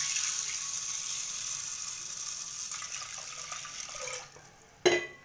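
Water poured in a steady stream from a vessel into a pressure cooker full of red kidney beans, splashing, until it tails off about four seconds in. A single sharp knock follows near the end, the loudest sound here.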